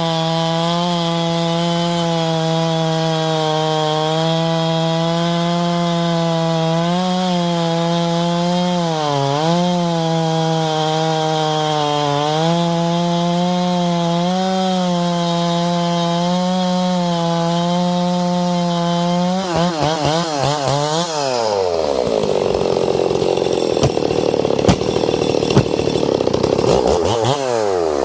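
Stihl 460 Magnum two-stroke chainsaw running at high revs, dipping briefly a couple of times. About twenty seconds in the revs drop sharply and it labours with a rougher, noisier sound, as if cutting wood, then revs back up near the end.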